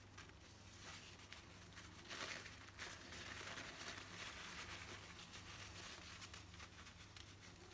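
Paper towel rustling and crinkling faintly in the hands as it wipes thick silicone oil out of an RC car's differential, over a low steady hum.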